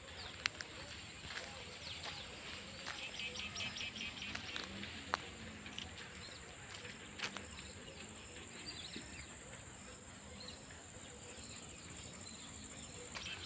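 Outdoor nature ambience: birds chirping, including a quick run of repeated chirps a few seconds in, over a steady high-pitched buzz, with a few sharp clicks.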